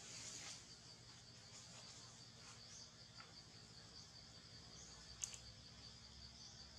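Faint insect chirping in the forest: a high, rapid, evenly pulsed chirp that keeps on steadily, with a single sharp click about five seconds in.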